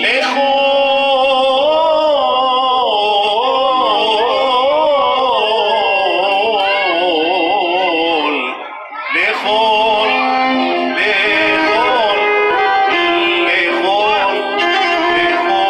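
Live Arabic band music: a male singer sings a winding, ornamented melody into a microphone over keyboard, violin and goblet drum, with a short break about halfway before the phrase resumes.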